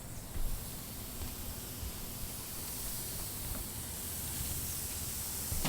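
A steady high hiss that slowly grows louder, over an uneven low rumble like wind on the microphone.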